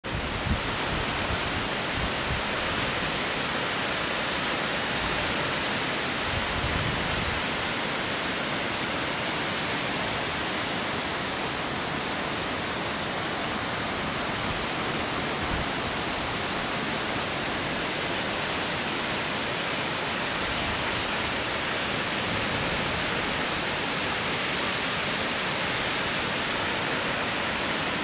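Wallaman Falls plunging into its pool: a steady, unbroken rush of falling water.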